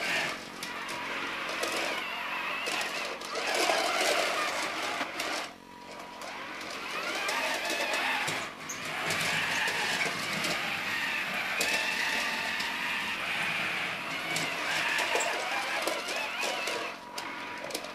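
Geared drive motors of a radio-controlled Hasbro R2-D2 toy whirring as it drives and turns, pausing briefly twice.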